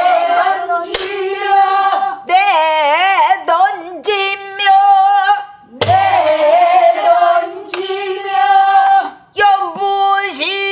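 A woman singing pansori in a full, ornamented voice with long held notes and wide, shaking vibrato, accompanied by a few strokes on a buk barrel drum, the strongest a deep thump about six seconds in.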